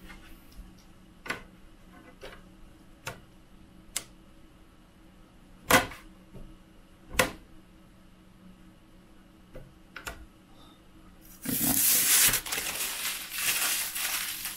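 Thin spring-steel build sheet of a 3D printer clicking and ticking as it is flexed and laid onto the magnetic bed: a handful of sharp separate clicks, the loudest about six and seven seconds in. From about eleven seconds on, a loud continuous rustling noise.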